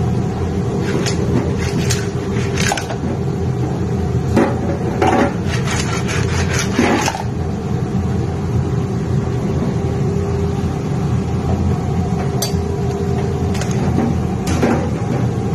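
Pasta with clams being stirred in an aluminium pan: clam shells and the utensil click and scrape against the metal, often in the first half and a few times near the end, over a steady low rumble with a hum.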